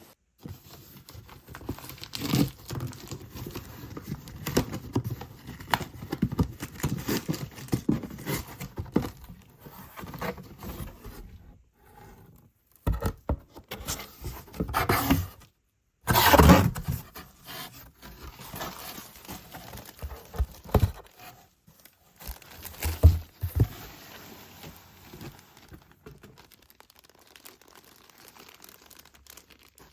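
Shipping package being opened by hand: packaging tearing, crinkling and rustling, with many small knocks and scrapes. It drops out briefly twice, and the loudest rips come just after the second gap.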